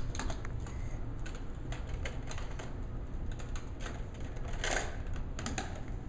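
Irregular plastic clicks and taps of Hess toy trucks being handled and set down on a wooden floor, with a quick cluster of clicks near the end.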